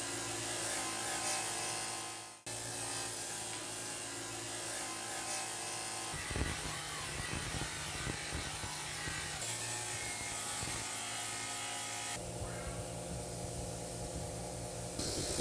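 Bench grinder motor running with a wire brush wheel, the spinning bristles rubbing against a steel hand-saw blade to strip rust. The hum and scrubbing jump abruptly a few times.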